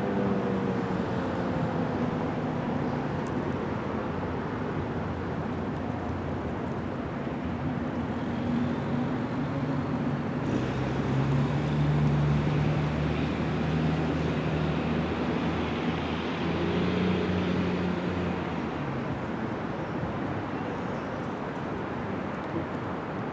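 The Federal Signal 2001-SRN siren's falling wind-down tails off right at the start, leaving steady outdoor street traffic noise with a low engine hum that is strongest in the middle.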